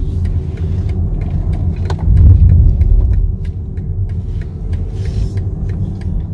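Low steady road-and-engine rumble heard inside a moving car's cabin, swelling louder about two seconds in, with a light regular ticking about three times a second.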